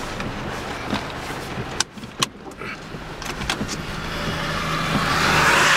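A car on a wet road, its tyres hissing louder as it comes closer over the last couple of seconds, over a low steady rumble. There are a few sharp clicks about two seconds in.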